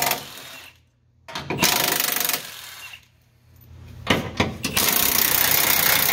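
Power ratchet running in three bursts, a short one, a second of about a second, then a longer run of about three seconds, backing out a 15 mm fine-thread bracket bolt.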